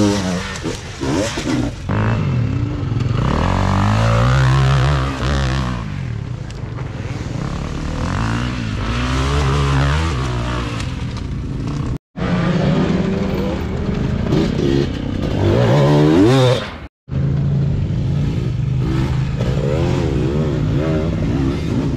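Enduro dirt bike engines revving hard under load on a steep dirt climb, the pitch rising and falling over and over as the riders work the throttle. The sound cuts out briefly twice, about halfway through and again some seconds later.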